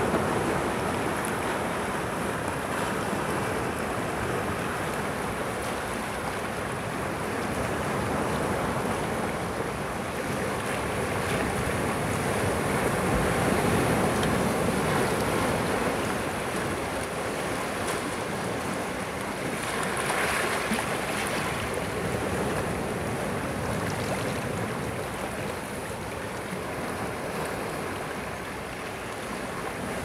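Sea waves breaking and washing in among boulders on a rocky shore, water rushing and draining between the stones, the level gently swelling and easing as each wave comes in.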